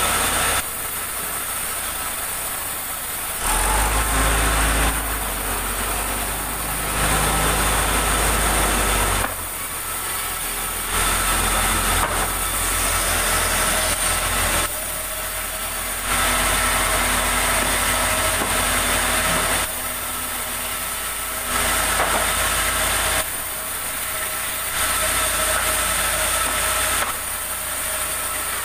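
Engine-driven sawmill saw cutting wood. The loud cutting noise rises and falls every few seconds, between quieter stretches where the engine runs steadily.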